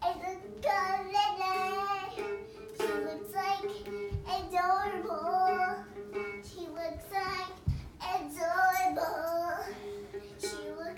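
A young girl singing over background music, her voice gliding up and down through the phrases, with two dull thumps about four and eight seconds in.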